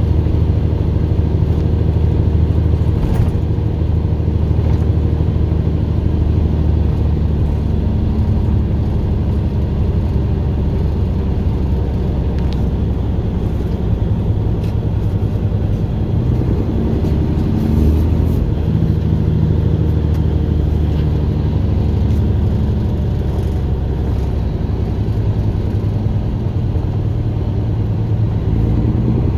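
Heavy diesel engine of a 2011 Peterbilt semi truck running steadily while driving with a loaded trailer, heard from inside the cab. Its engine note shifts in pitch partway through.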